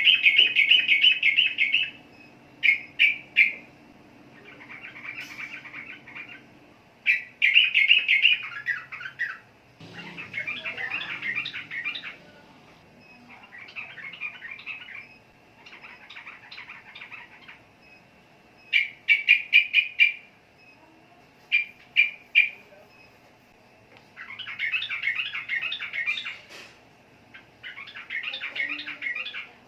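Sooty-headed bulbul (trucukan) singing in a series of short bursts of rapid chattering notes, with brief pauses between the phrases.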